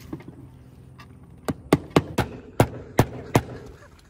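Nails being driven through the flange of a solar roof vent into the roof deck: seven sharp strikes in quick succession, starting about a second and a half in.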